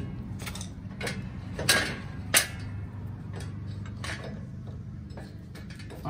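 Irregular metal clicks and light knocks as parts are handled and fitted at a front wheel hub, the loudest about two and a half seconds in, over a steady low hum.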